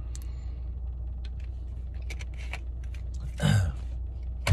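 A man drinking from a plastic bottle, with small clicks of handling and swallowing. About three and a half seconds in comes a short voiced exhale falling in pitch, and near the end a sharp click. A steady low hum of the car interior runs underneath.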